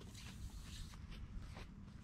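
Soft footsteps on grass and clothing rustling, a few irregular swishes, as a man walks past carrying a large tyre.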